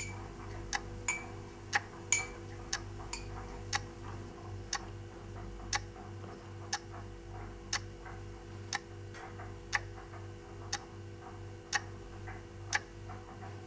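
A clock ticking about once a second, with a steady low hum beneath.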